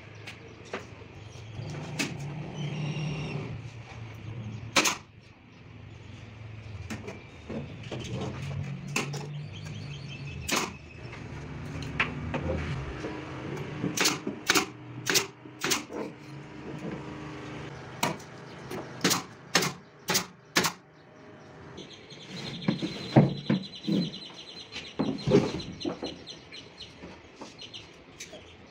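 Workshop knocking on a subwoofer cabinet's wooden panels: sharp knocks and clicks in irregular runs, with a low hum underneath and a thin high tone with fine ticking near the end.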